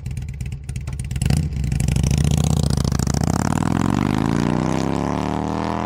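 Harley-Davidson V-twin motorcycle engine idling with rapid, even pulses, then revved sharply about a second in. It is held loud, and its pitch climbs steadily as it accelerates toward the end.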